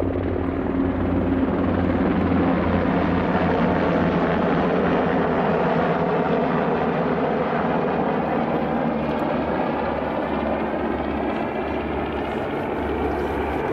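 An aircraft, most likely a helicopter, passing overhead: a steady engine drone that runs through the whole stretch, its pitch drifting slowly downward.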